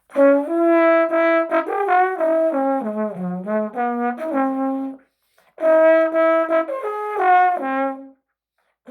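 Trombone played through a 3D-printed mouthpiece: a quick melodic passage of separate notes in two phrases, with a short break between them.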